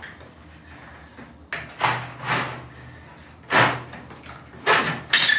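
Sheet-metal shelf being handled and fitted together: several separate scrapes and knocks of thin metal, the last near the end with a short metallic ring.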